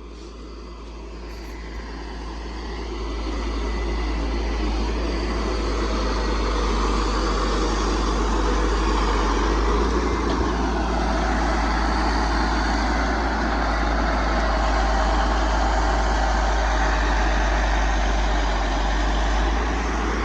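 Kenworth logging truck's diesel engine rising in revs over the first few seconds and then running steadily at high revs, driving the self-loader's hydraulic crane as it swings a cedar pole.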